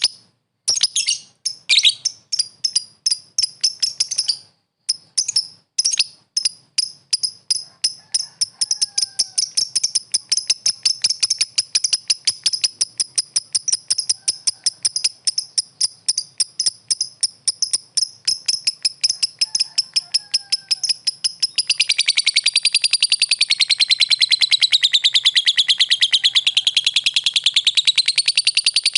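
Lovebird calling: sharp, high-pitched chirps repeated in a quickening series, from a few a second to a fast chatter. About three-quarters of the way through this runs together into one continuous, louder warbling trill that wavers up and down in pitch.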